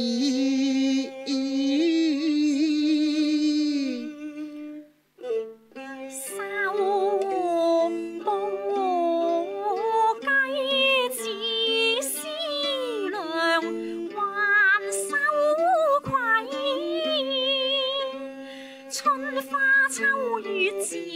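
Cantonese opera singing: a man holds a long sung note over his plucked ruan, then, after a brief break about five seconds in, a woman sings a slow, ornamented melody while accompanying herself on the erhu.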